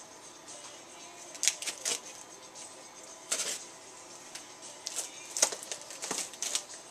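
Knife slitting the packing tape on a heavily taped cardboard box: several short, scratchy rasps, with the loudest coming about two thirds of the way through.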